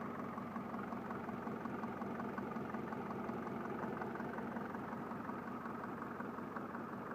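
Mercedes-Benz OM601 four-cylinder diesel engine idling steadily with a rough, knocking run. The owner set out to cure the shaking by flushing the injectors and adjusting the idle.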